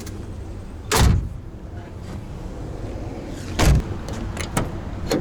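Two heavy thumps of the Ford E350 van's doors, about two and a half seconds apart, with a few lighter clicks after the second, over a steady low hum.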